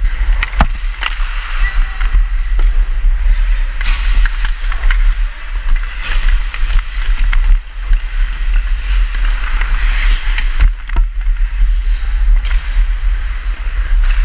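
Ice skates scraping and gliding on the rink ice, swelling and fading with each stride, over a steady low rumble of wind buffeting the helmet-mounted camera's microphone. A few sharp clacks of the hockey stick on the ice and puck are scattered through it.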